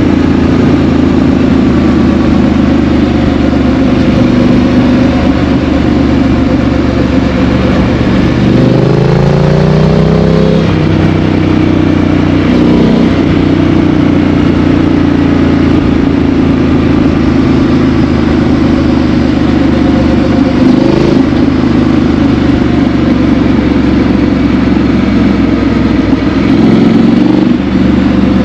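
2018 Triumph Street Scrambler's 900 cc parallel-twin engine running through a Vance & Hines exhaust, cruising at steady throttle. About eight seconds in the revs climb for a couple of seconds, then drop back with a gear change.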